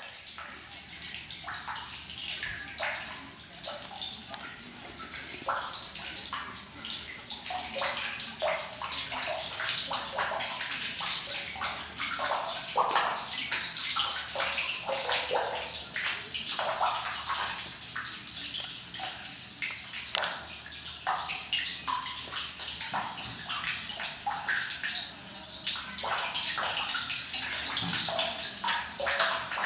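Spring water pouring in a thin stream from a spout and splashing into the water below, a steady trickle with many small irregular splashes.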